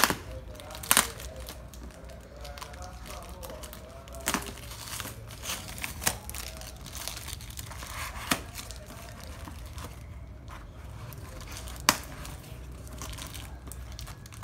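Scissors cutting through packing tape and plastic wrap on a cardboard parcel: crinkling of the wrap, with sharp snips and clicks at irregular intervals, the loudest near twelve seconds in.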